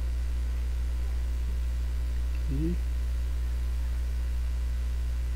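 Steady low electrical mains hum on the microphone recording. About two and a half seconds in there is one brief vocal sound.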